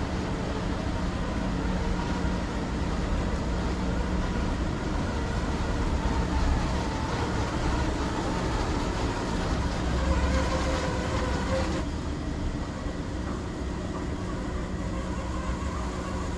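Düsseldorf Airport SkyTrain, a suspended monorail, running: a steady low rumble with a motor hum. A short rising whine comes about two-thirds of the way through and stops abruptly.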